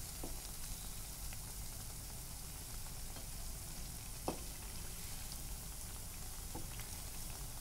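Urad dal and colocasia-leaf vadas deep-frying in hot oil in a kadhai: a steady sizzle, with a single short click about four seconds in.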